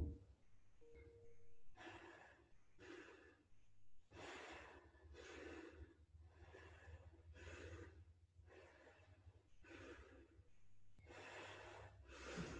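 A person breathing audibly in and out, about ten breaths at a steady pace of roughly one a second.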